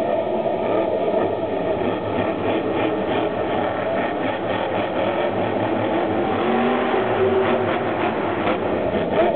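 Grave Digger monster truck's supercharged V8 running hard across the arena floor, its revs rising and falling, heard loud and steady from the stands.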